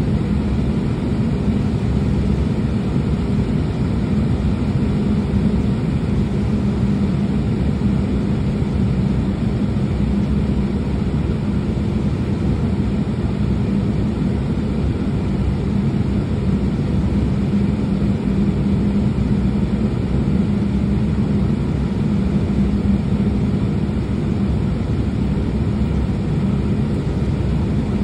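Embraer E195-E2's Pratt & Whitney PW1900G geared turbofan running at idle, heard from inside the cabin as a steady low drone with a constant hum.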